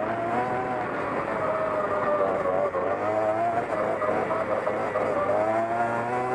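Vehicle engines running, their pitch rising and falling, over a steady low hum.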